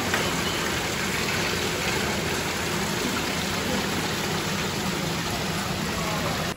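Steady rush of running water flowing through an indoor tank of live ayu, cutting off suddenly at the end.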